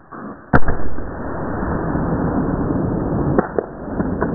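A single shotgun blast from a Remington 12-gauge about half a second in, followed by loud rough noise and a few sharp knocks near the end.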